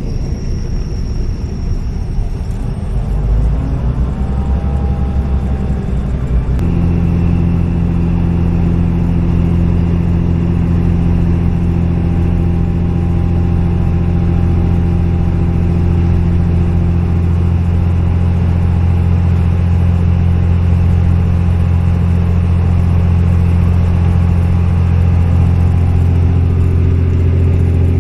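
Diesel train running: a loud, steady low engine drone over a rumble. The drone suddenly strengthens about six and a half seconds in.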